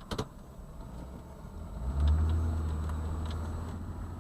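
Two sharp clicks, then a motor vehicle's engine rumbles up suddenly about two seconds in and slowly dies down, like a vehicle pulling away.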